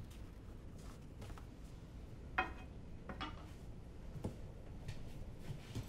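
A few light clicks and clinks of kitchen items being handled, the clearest about two and a half seconds in with a brief ring, over a quiet low hum.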